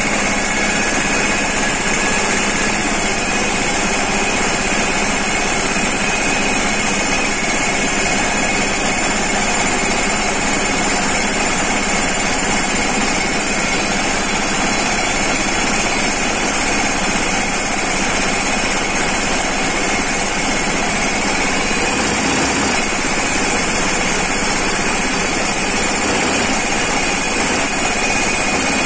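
Tractor-mounted hydraulic post driver hammering a steel crash-barrier post into the ground: a fast, continuous hammering over the tractor's running engine, steady throughout.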